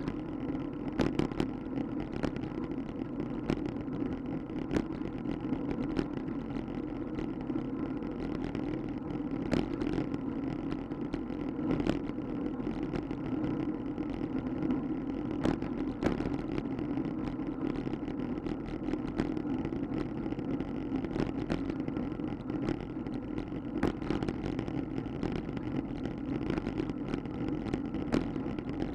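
Steady rumble of a bicycle rolling over concrete and asphalt path, heard from a camera mounted on the bike, with frequent sharp clicks and rattles as it goes over bumps and cracks.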